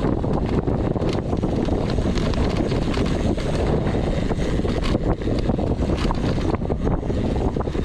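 Wind buffeting the camera microphone as a mountain bike descends a downhill trail, a steady heavy rumble with frequent short knocks and rattles from the bike over rough ground.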